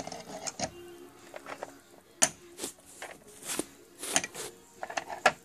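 Small plastic toy pieces handled and set down on a hard surface: a scattered series of light clicks and taps.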